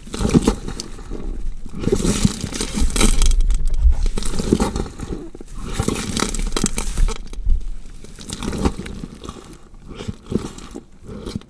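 Gore foley effect of a body being dissected: irregular cutting and tearing noises in uneven surges, full of small clicks, growing fainter near the end.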